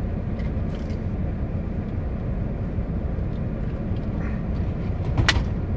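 Steady low hum of a car idling with its air conditioning running, heard from inside the cabin. A single sharp click comes about five seconds in.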